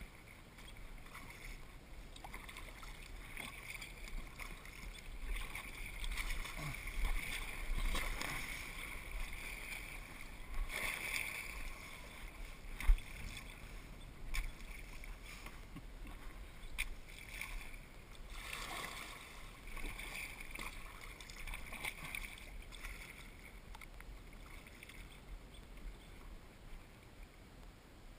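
Kayak paddling: the paddle blades dip and water swishes and trickles, with several louder swishes. A single sharp knock comes about thirteen seconds in.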